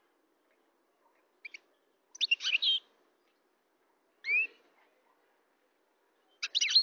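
European goldfinch calling in short twittering bursts a second or two apart, one of them a single slurred upward whistle.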